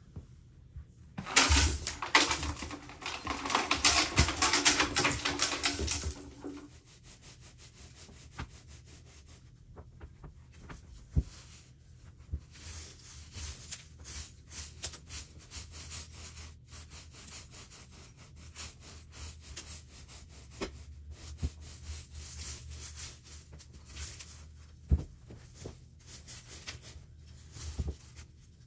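Debris from a vacuum's dust canister, glitter, confetti and grit, pouring out onto a shag rug for about five seconds. Then a carpet rake scrapes and rustles through the shag pile in repeated, quieter strokes.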